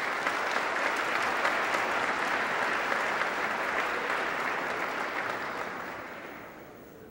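Audience applauding, steady at first and dying away over the last two seconds.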